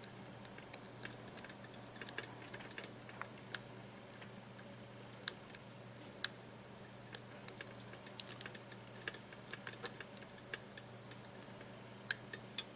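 Small, irregular metallic clicks and ticks of a lock pick and tension wrench working the pins of a Bearsback challenge lock, a few sharper clicks among them, over a faint steady hum.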